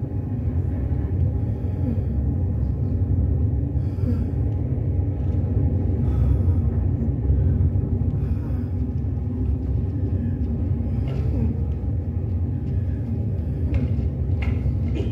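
A steady low rumble with faint held tones above it.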